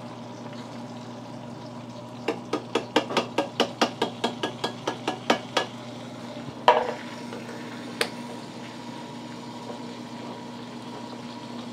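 A quick run of sharp metallic taps, about five a second for some three seconds, then a louder clack and a single click, from cans and steel pans being handled. A steady low hum runs underneath.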